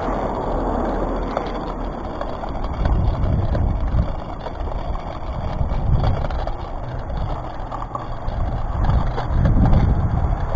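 Wind rushing over the microphone of a camera moving along a road, with rolling road noise beneath it. Low buffeting swells about three seconds in, again around six, and most strongly near the end.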